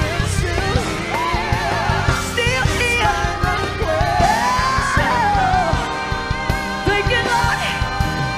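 A woman singing gospel live with a band of drums and electric guitar, her voice sliding and wavering through long held notes over a steady beat.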